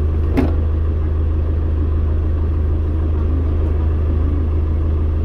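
Steady low engine and road rumble inside a kindergarten shuttle bus's cabin, with a single short click about half a second in.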